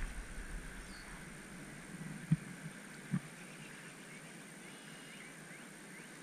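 Faint, steady rush of river current running past the bank, with two soft low knocks about a second apart near the middle.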